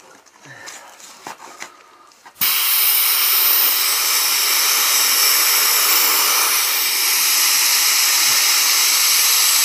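Compressed air from an air hose hissing steadily, switched on abruptly about two and a half seconds in, as it inflates a dead deer's collapsed lungs, with a lot of air escaping past them.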